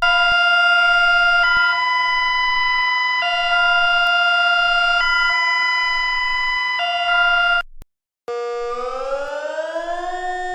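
Emergency alert alarm tone: a steady chord of several tones that switches back and forth between two pitches about every second and a half, then cuts off abruptly. After a short gap, a siren-like wail rises in pitch and levels off near the end.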